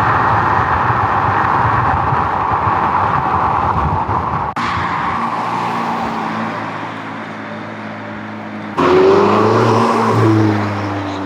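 McLaren 570S's twin-turbo V8 on its standard exhaust: a loud rushing passage, then after a cut a steadier engine note, and about nine seconds in a sudden hard acceleration whose pitch rises and then falls away.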